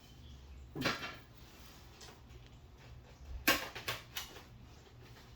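Parts and packaging of a foam RC jet kit being handled and set down on a table: a short knock or rustle about a second in, then a quick cluster of three or four knocks and rustles around three and a half seconds in.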